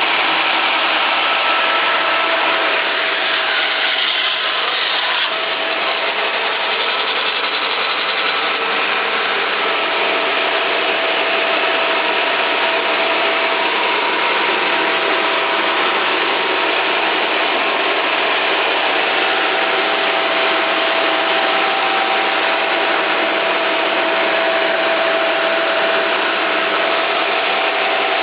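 Meber SR900 industrial resaw band saw, with 36-inch solid wheels and no tires, running steadily, with a faint steady whine over the machine noise.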